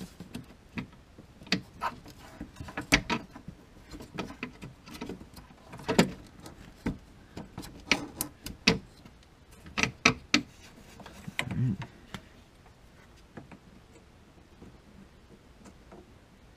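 Scattered clicks and light knocks of hands handling a C5 Corvette's fuel filter and pressure regulator assembly and its push-in quick-disconnect fuel line fittings, most of them in the first twelve seconds, then only a few faint ticks.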